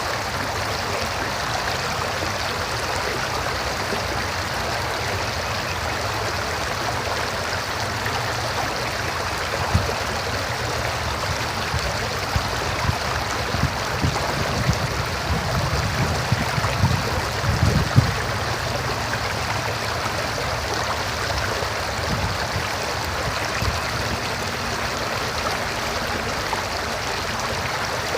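River water flowing, a steady rushing of water. About halfway through come a cluster of short low thumps, and near the end a faint low hum.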